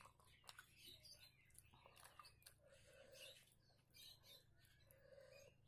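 Faint close-up eating sounds: an irregular run of small wet clicks and smacks from fingers mixing rice with egg masala curry, along with chewing.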